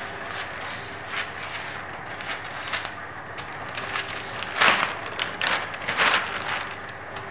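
Dressmaking scissors snipping through a paper pattern and the fabric beneath, with the stiff paper pattern crackling and rustling as it is handled, loudest in a few bursts past the middle.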